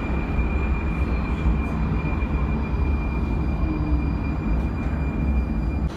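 81-71M metro train running along a station platform, heard from inside the car: a steady low rumble of wheels and running gear with a thin, steady high whine above it. Both cut off abruptly near the end.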